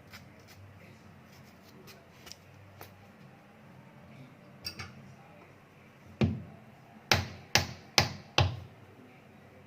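A few faint clicks, then a run of five sharp, loud knocks with a short ring, about two a second, as from hard parts being struck or clacked together.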